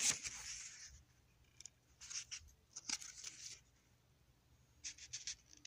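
Paper pages of a guidebook being turned and handled. A soft sweep of paper fades over the first second, followed by a few short crisp rustles. Near the end comes a quick cluster of light paper ticks.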